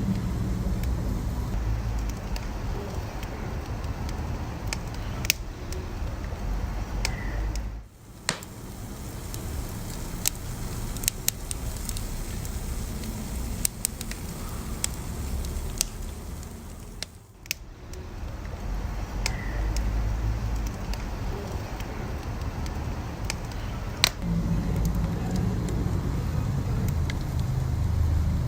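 Wood fire burning with a steady low rumble and scattered sharp crackles and pops. The sound briefly drops away twice.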